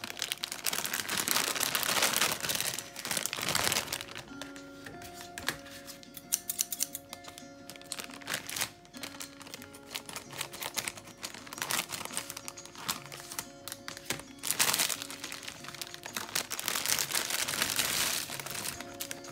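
Crinkling of a plastic candy bag being handled, loudest in the first few seconds and again near the end, with scissors snipping the bag open midway. Background music plays throughout.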